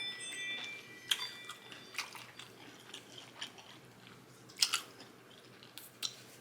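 Close-up mouth sounds of biting into and chewing a juicy lettuce-wrapped cheeseburger: wet smacks and sharp clicks at irregular intervals, the loudest pair about four and a half seconds in.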